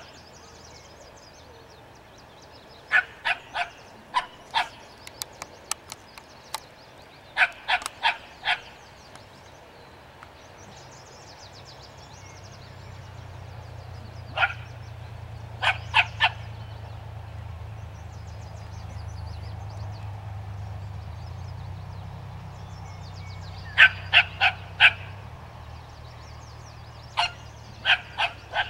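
Small dog barking at a skunk in short bursts of two to four sharp barks, with pauses of several seconds between bursts.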